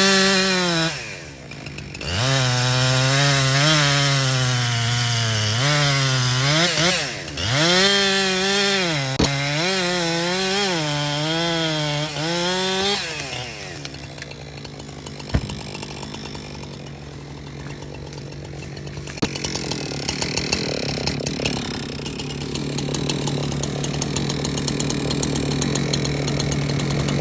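Two-stroke chainsaw cutting wood, its engine speed repeatedly dipping under load and climbing again for the first half. After about thirteen seconds the pitch stops swinging and a steadier engine sound carries on.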